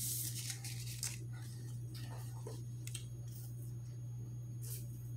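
Paper straw wrapper crinkling and tearing off a drinking straw in the first second or so, then a few short slurps of a thick milkshake sucked up through the straw.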